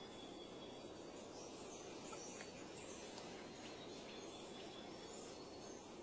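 Faint rainforest ambience: a steady low hiss with faint, high insect chirps repeating at regular intervals.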